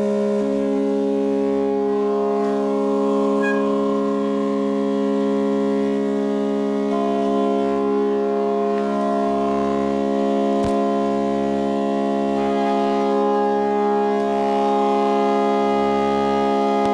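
Organ pipes of the Midmer-Losh's eight-rank Cymbal mixture sounding a held note as a steady cluster of pipe tones. More ranks join one at a time, about half a second in and again around seven and nine seconds in, as the mutes are pulled from the pipes. A single click comes about ten and a half seconds in.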